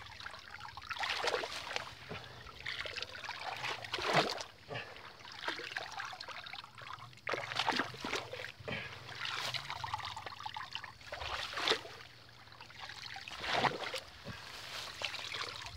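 Shallow muddy water sloshing and trickling as a round woven fishing sieve is pushed and scooped through a grassy streamlet, in a run of irregular splashy swishes.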